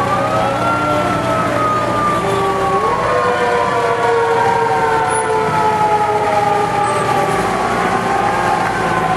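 Fire engine sirens wailing, two or more overlapping. Each winds up quickly, then slowly falls in pitch over several seconds, over the low rumble of the passing trucks.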